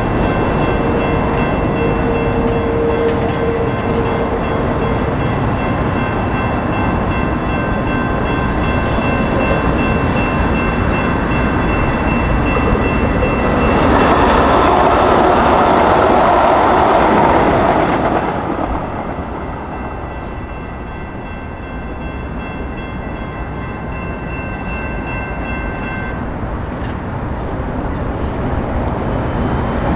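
Electronic railroad crossing bells (a Siemens E-Bell and a GS Type 2 E-Bell) ring steadily. A CAF light rail train passes loudly for a few seconds about halfway through. The bells stop about 26 seconds in, as the gates begin to rise.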